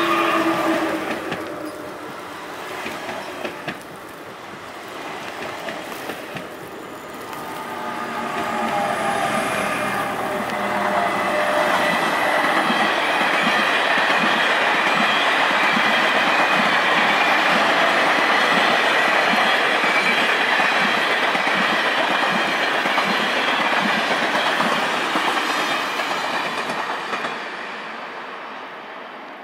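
Electric trains passing on snowy tracks. In the first couple of seconds a double-deck Transilien commuter train passes close with its motors whining. A double-deck TGV high-speed train then runs past at speed: a rushing rumble of wheels on rails with some clickety-clack and a thin steady squeal. It builds over several seconds, stays loud for about a dozen seconds and fades away near the end.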